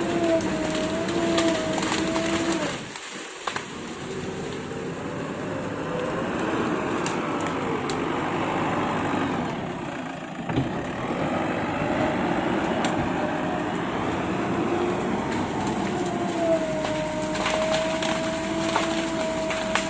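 Excavator running under load: its engine and hydraulics give a steady whine that shifts in pitch as the machine works, with light knocks and crunching from the broken rubble being moved.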